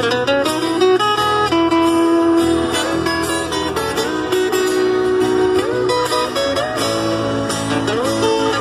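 Instrumental break of a Brazilian romantic song: a guitar lead plays a melody with held notes and slides between pitches over the steady backing band, with no singing.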